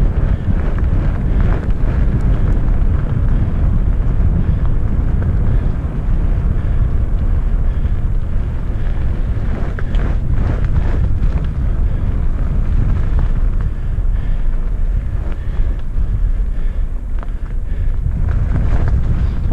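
Wind noise on a helmet-mounted camera's microphone, over a steady low rumble of mountainboard wheels rolling down a gravel trail, with scattered knocks from bumps in the track, clustering about ten seconds in and near the end.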